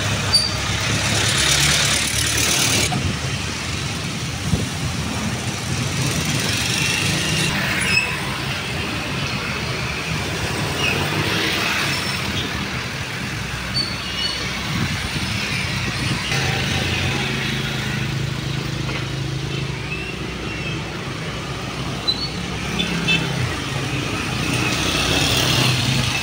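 Steady city road traffic: car and truck engines running and passing, with tyre noise and a few brief clicks.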